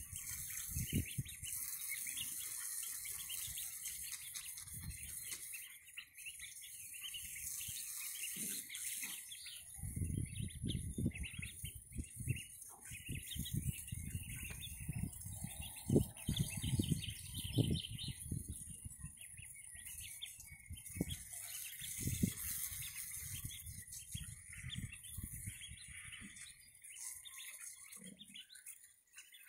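Mallard ducklings peeping continuously while they feed, with irregular low rumbles now and then.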